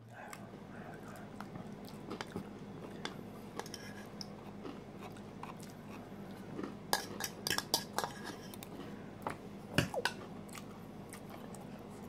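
Chewing a mouthful of salad, with a metal fork tapping and scraping in a plastic bowl. A run of sharp clicks comes in the second half.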